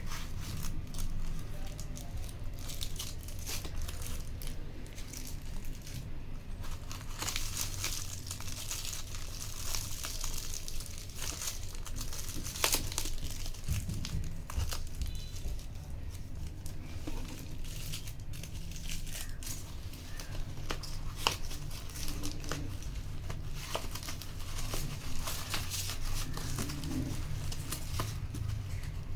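Packaging being handled and opened: irregular crinkling and crackling with some tearing, over a low steady hum.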